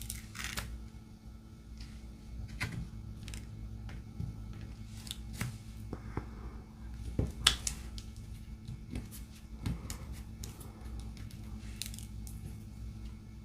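Scattered small clicks and taps of diamond painting: a drill pen picking up resin drills and pressing them onto the sticky canvas, with light handling of the tray and canvas. A steady low hum runs underneath.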